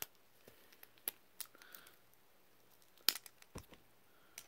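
Plastic fidget spinner being bent and twisted by hand: scattered creaks and sharp cracking clicks, the loudest about three seconds in. The speaker thinks this strain broke the spinner's glued joint.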